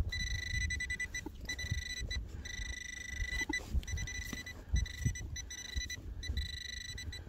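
Metal detector's electronic target tone, a steady high beep that sounds in stretches of about a second and cuts off again several times as it passes over a target in the dug hole. Low rustling and a few knocks from handling the gear underneath.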